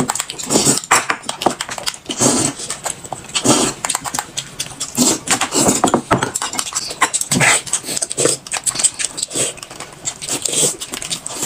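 Close-miked eating sounds: slurping a drink from a glass cup and chewing and smacking on steamed buns, a quick irregular run of wet mouth noises.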